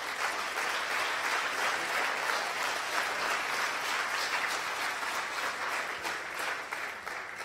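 Audience applauding, a steady dense clapping that dies down near the end.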